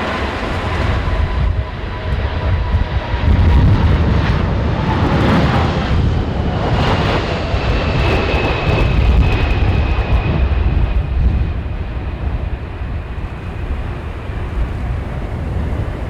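Boeing 747-400 freighter's jet engines passing, a heavy rumble with a thin whine that slowly falls in pitch.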